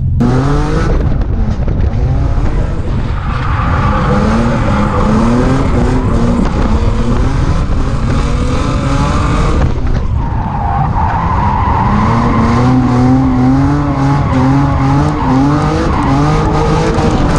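A 1JZ straight-six swapped into a Nissan 350Z drift car, revving hard, its pitch climbing and falling again and again, with tires squealing and skidding through the drifts. Near the middle the revs break off briefly, then climb again.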